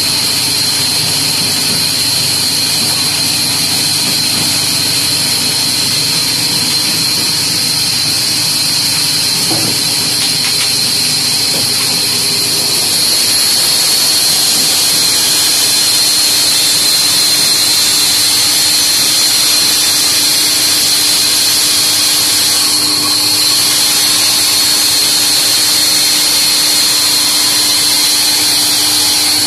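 Large floor-standing band saw running and ripping a thick wooden plank: a steady high hiss over a constant hum, growing a little louder about halfway through as the blade works through the wood.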